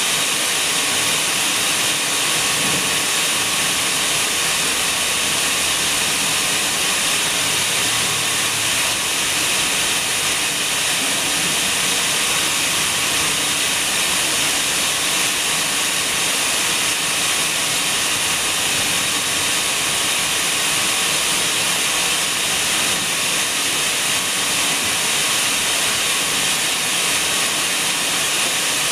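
A steady, even hiss, strongest in the high range, with no breaks or changes in level.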